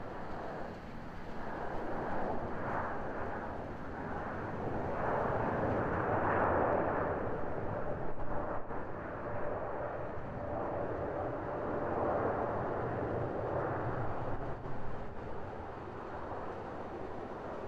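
Distant jet engine noise from an Airbus A350-900's Rolls-Royce Trent XWB engines as the airliner rolls out on the runway after landing: a steady rushing roar that swells in the middle, with a faint steady whine, then eases off toward the end.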